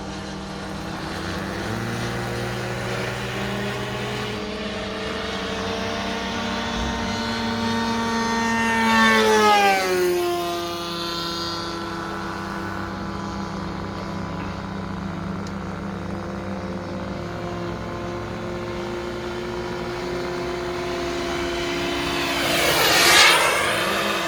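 Small model jet turbine of a Freewing Su-35 RC jet, converted to a 4.5 kg-thrust turbine, whining steadily in flight. It makes two fly-bys, about nine seconds in and near the end; at each the whine swells and then drops in pitch as the jet passes.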